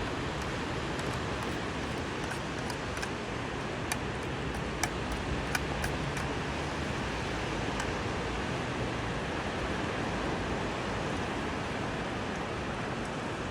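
Sea water washing with a steady, even hiss, and a few light clicks about four to six seconds in.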